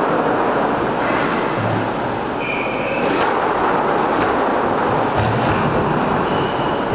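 Squash play on a wooden court: sharp knocks of the ball and racket, a few short high squeaks of shoes on the floor and dull footfalls, over a steady rushing noise.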